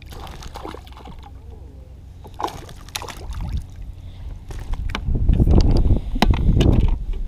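A hooked bass splashing at the surface beside a kayak as it is landed, with scattered clicks and knocks against the hull. From about five seconds in, loud low rumbling noise on the microphone.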